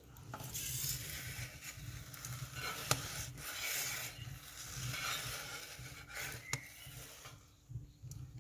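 Wood and charcoal fire in a clay brasero hissing unevenly, with a couple of sharp crackling pops about three and six and a half seconds in.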